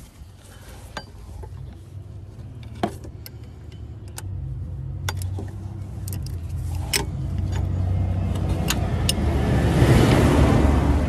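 Metal hand tools and sockets clinking sharply on metal now and then, over a low vehicle rumble that swells to its loudest about ten seconds in and then eases.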